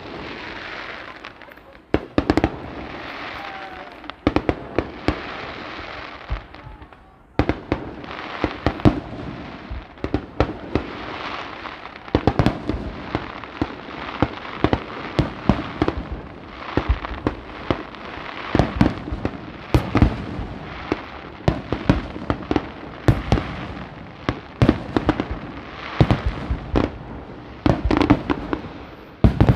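Fireworks display: aerial shells bursting in a dense run of sharp bangs, often several a second, with a brief lull about seven seconds in.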